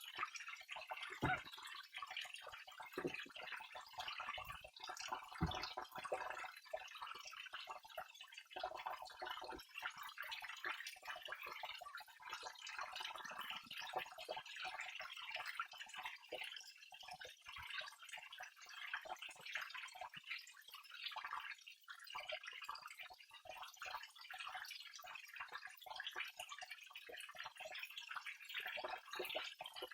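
Waterfall: water falling and splashing steadily, with a trickling, dripping texture, and a couple of brief knocks in the first few seconds.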